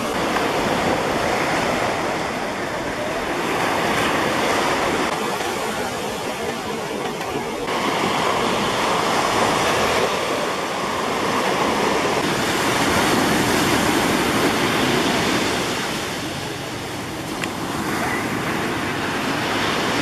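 Ocean surf breaking and washing up a sandy beach: a steady rushing wash that swells and eases every few seconds.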